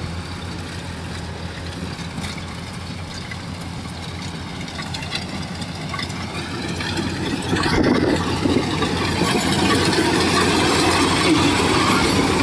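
Kubota DC-70 Plus rice combine harvester's diesel engine running steadily while it cuts, growing louder a little past halfway as the machine comes alongside, with the rattle of the harvesting gear on top.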